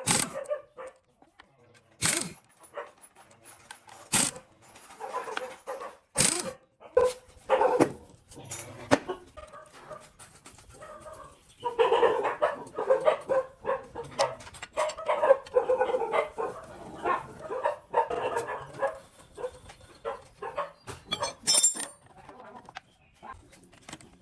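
A dog barking and whining in short pitched calls, most continuous through the middle of the stretch. Sharp knocks come about every two seconds at the start, and again near the end.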